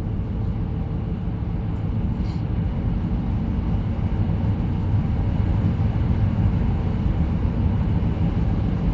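Steady, low driving rumble of road and engine noise, heard from inside a moving vehicle's cab.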